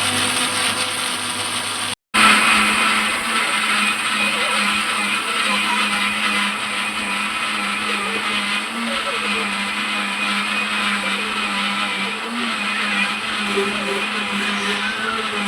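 Electric mixer grinder running steadily with a constant motor hum, grinding batter for poda pitha. It breaks off for an instant about two seconds in.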